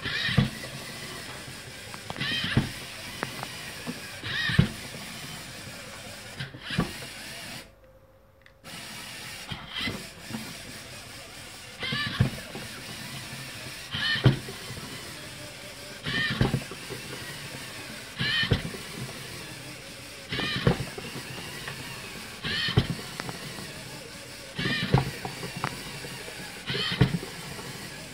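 LEGO Mindstorms EV3 biped robot walking: its servo motors whine in short rising and falling spurts about every two seconds, each step ending in a clack of plastic feet on the wooden tabletop.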